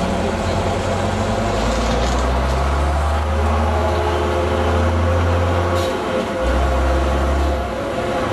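Leyland Olympian double-decker bus engine pulling steadily. About six seconds in the drive breaks off for a gear change with a short sneeze of air from the air-operated gearbox, and the engine picks up again at a new pitch.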